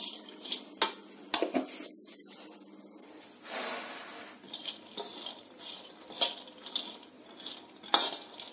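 Spatula scraping and knocking on a tawa while boiled chana dal is stirred and roasted in a little ghee. It comes as irregular scrapes and clicks, with a longer rustling sweep of the lentils about three and a half seconds in.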